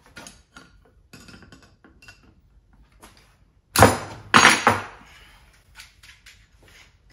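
Steel coilover parts and hand tools clinking and clanking on a workbench as a coilover is stripped down, with two loud ringing metallic clanks about four seconds in.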